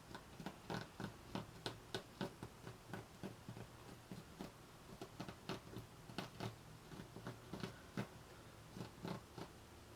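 Pen drawing an outline onto craft material, with short, irregular scratching strokes, several a second.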